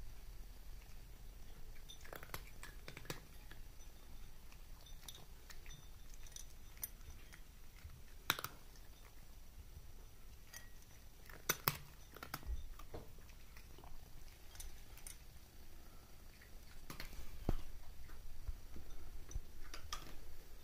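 A cat eating dry kibble from a plate: faint, irregular crunching and clicking as it chews, with a few louder crunches scattered through.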